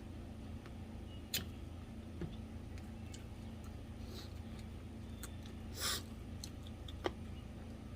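Eating sounds: three short, sharp clicks and taps at a table, the middle one a little longer, over a steady low hum.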